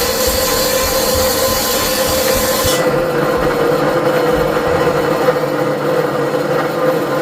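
A power tool working wood, a steady rasping hum. The high hiss in it cuts off about three seconds in, while the hum carries on.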